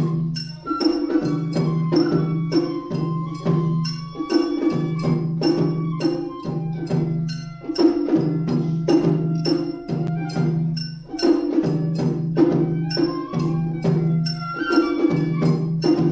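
Matsuri-bayashi festival music: a shinobue bamboo flute plays a melody over rapid, dense strikes on shime-daiko drums and an ōdaiko.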